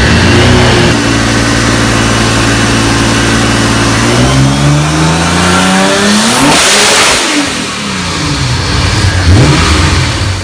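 Twin-turbo 4.1-litre VR38-based V6 running loud. It holds a steady speed for about four seconds, then revs hard up to a peak midway, drops back, and is blipped up and down several times near the end.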